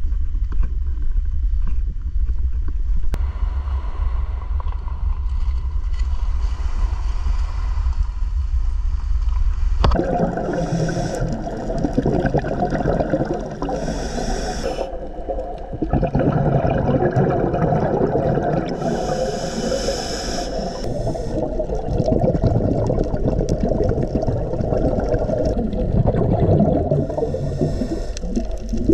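Wind buffeting the microphone, then, from about ten seconds in, a scuba diver breathing through a regulator underwater: a hissing breath every few seconds amid a constant bubbling, gurgling wash.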